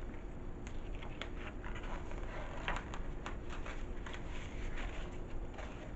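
Light paper rustling and scattered small clicks from the pages of a picture book being handled and turned.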